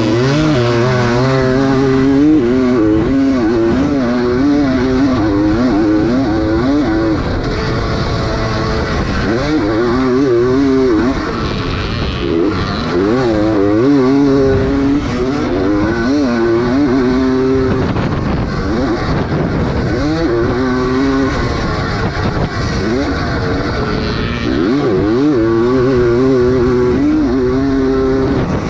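Vintage 250 cc motocross bike's engine, heard up close from the bike, revving up and down over and over as the rider opens and closes the throttle around the track, with brief drops where the throttle is rolled off.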